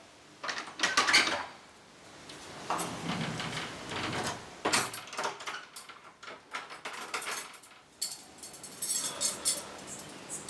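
An old wooden door being rattled and pushed, its bolt or latch clicking and the wood knocking and scraping, in several short bursts of clatter.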